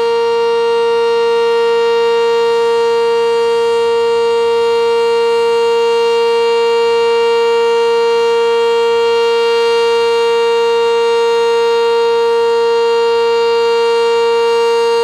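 Sentry 10V2T outdoor warning siren sounding one steady, really loud tone that holds its pitch without rising or falling. Only one of its two motors is working, so the dual-tone siren gives a single tone.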